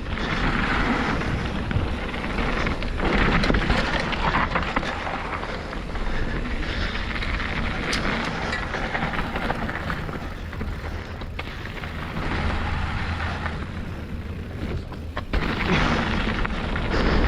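Mountain bike descending a downhill trail at speed: wind buffets the helmet-camera microphone in swelling gusts, over tyre noise on dirt and scattered sharp clicks and knocks from the bike over bumps.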